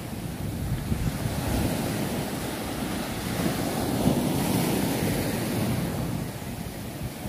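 Sea waves breaking and washing up onto a sandy, pebbly shore and against rocks, a steady rushing surf, with wind buffeting the microphone.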